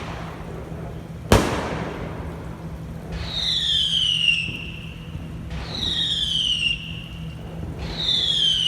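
Fireworks going off: a single sharp firecracker bang about a second in, then three whistling fireworks shrieking one after another, each whistle falling in pitch over about a second and a half over a hiss.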